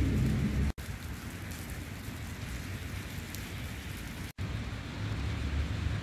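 Steady hiss of falling wet snow, like light rain, with a low wind rumble on the microphone at the start and again near the end. The sound drops out abruptly twice, briefly, where clips are joined.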